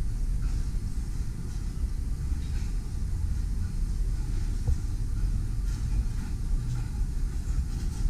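Low, uneven rumble of background noise in a large store, picked up on a handheld camera's microphone, with a few faint ticks.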